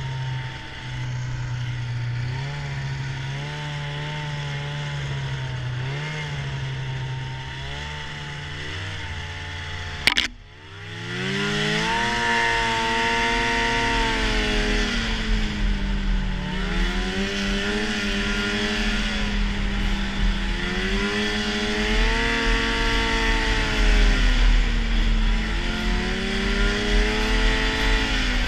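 Arctic Cat snowmobile engine running at a steady speed. About ten seconds in there is a sharp knock and the engine briefly drops, then it revs up quickly and keeps rising and falling with the throttle, over steady wind and track noise.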